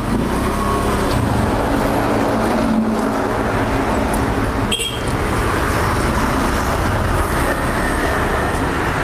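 Steady road traffic noise, with the engine drone of a passing motor vehicle through the first half.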